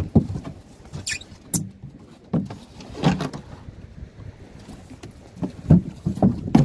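Irregular knocks, thuds and scrapes of styrofoam fish boxes being handled and bumped against the wooden boat's side and rail, about a dozen strokes at uneven spacing, a few of them sharper.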